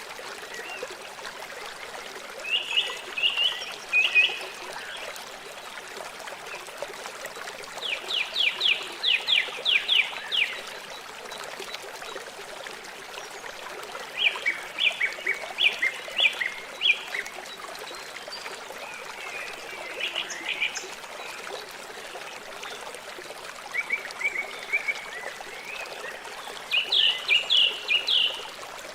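River water flowing steadily, overlaid every few seconds by short bouts of an animal's high, rapidly pulsed calls, each a quick string of repeated notes lasting a second or two.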